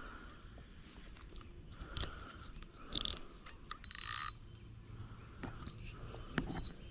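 A few short mechanical rasps from a fishing rod's reel and line being handled, grouped in the middle, with steady insect chirping behind.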